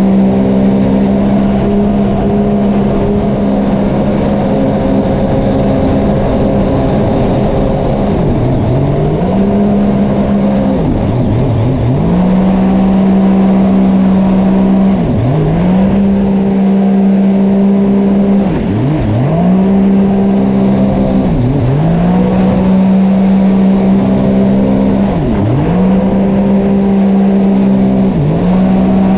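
Sea-Doo personal watercraft engine running hard at a steady high pitch. From about eight seconds in it drops briefly in pitch and climbs back again, roughly every three seconds.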